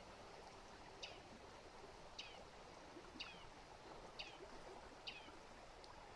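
A bird calling, a short falling note repeated about once a second, over the faint steady rush of a stream.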